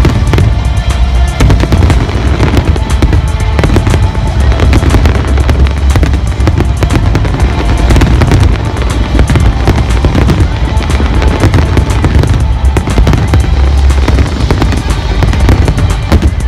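Fireworks going off nonstop, a dense run of bangs and crackles over deep booms, with loud music playing alongside.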